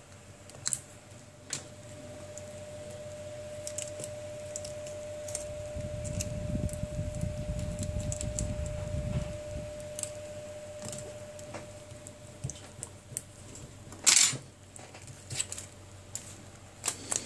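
Small plastic clicks and taps of fingers and a tool working the flex-cable connectors inside a Samsung Galaxy Tab 4 10.1 tablet, with some rubbing handling noise in the middle and one louder knock about fourteen seconds in. A faint steady whine runs under the first two-thirds.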